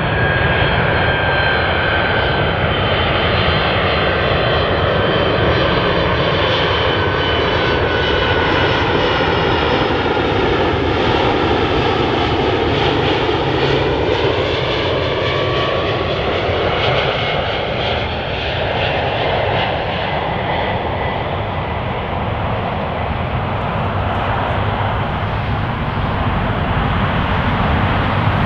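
Boeing 767-300ER on final approach, its twin jet engines running steadily at approach power: a constant rumble with several high whines that slowly fall in pitch as the jet comes in close.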